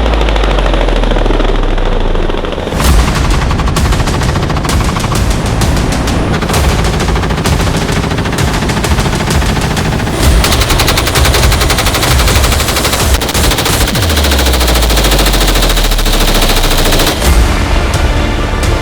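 Automatic weapon fired from a helicopter in long strings of rapid shots. A deep falling tone sounds about 14 seconds in.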